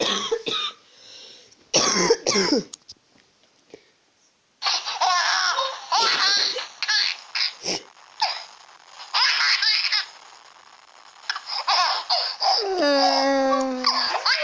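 A baby laughing in repeated giggly bursts, starting after a short near-silent pause about four and a half seconds in.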